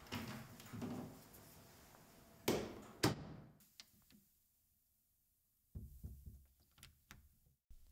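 Two sharp thuds about two and a half and three seconds in. After a stretch of dead silence comes a run of small clicks and rattles from a door handle being turned slowly on an interior door.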